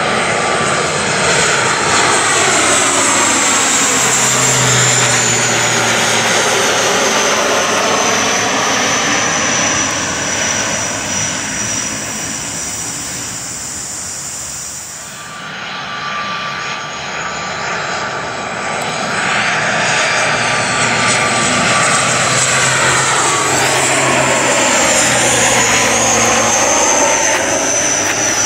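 ATR 72-600 turboprops going around at climb power, flying low overhead after missing an approach because the crews could not see the runway. Two passes, one after the other about halfway through, each a steady propeller drone with a high whine that slowly falls in pitch as the aircraft goes by.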